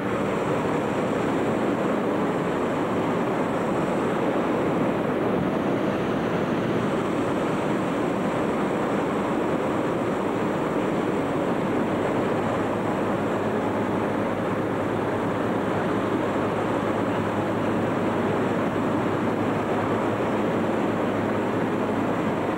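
Many engine-driven hot air balloon inflator fans running together in a huge enclosed hangar, a steady, unbroken rushing noise as the envelopes are cold-inflated.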